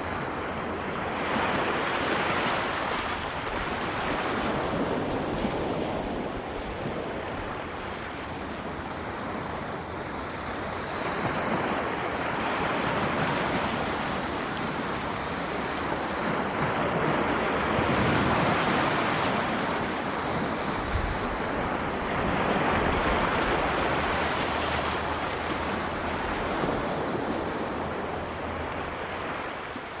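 Sea surf washing onto a shore, swelling and easing in waves every four to six seconds, and starting to fade near the end.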